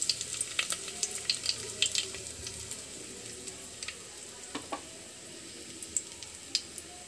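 Cumin seeds, mustard seeds and dried red chillies sizzling in hot oil in a metal kadai, with sharp crackles and pops of the seeds spluttering, frequent at first and thinning out toward the end. The spluttering is the tempering (tadka) frying in properly heated oil.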